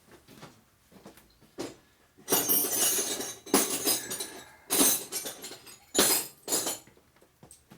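Metal hand tools clinking and clattering together in several spells, like Allen wrenches or sockets being rummaged through to find the next size up.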